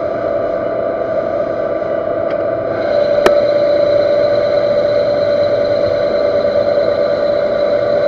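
Universal metal lathe running while an insert tool faces the end of a workpiece at a raised feed: a steady mechanical whine with cutting noise. It grows louder about three seconds in, with one sharp click just after.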